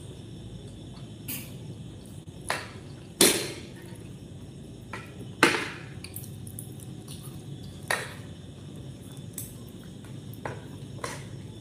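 Scattered sharp clinks of cutlery against a dinner plate, about eight of them at irregular intervals, over a low steady room hum.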